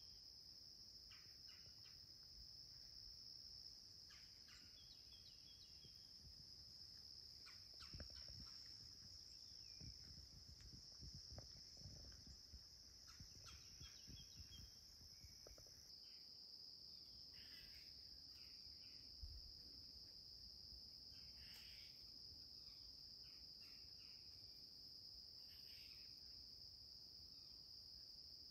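Faint, steady insect chorus, a continuous high-pitched trill, with scattered short bird chirps now and then. A low rumble comes and goes in the middle.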